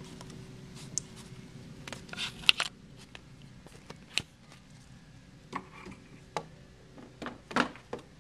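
Handling noise from a handheld camcorder and plastic toys being moved about: scattered clicks, taps and rustles, the loudest knocks about two and a half seconds in and near the end.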